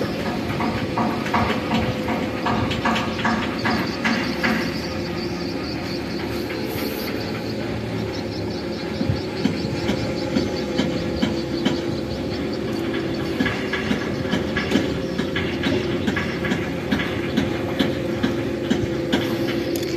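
A machine running steadily, with a constant hum and a rhythmic clatter of evenly spaced ticks.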